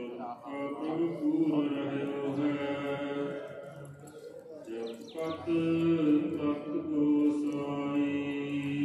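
Sikh kirtan: a Gurbani hymn sung in long, held notes with harmonium accompaniment, heard over loudspeakers.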